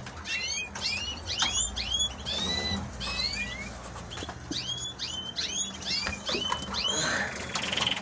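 Many caged canaries chirping: a constant stream of short, quick calls, with a buzzing trill starting near the end.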